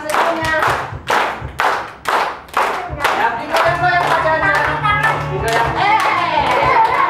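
A group of young children clapping hands in a steady rhythm, about two claps a second, while voices sing a song together. The clapping stands out for the first three seconds or so, then the singing grows fuller and takes over.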